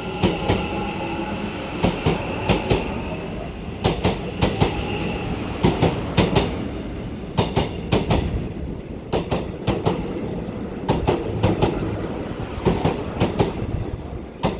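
Korail Line 4 electric multiple unit rolling past. Its wheels clack over the rail joints in quick doubles and groups, over a steady rumble, as each bogie crosses.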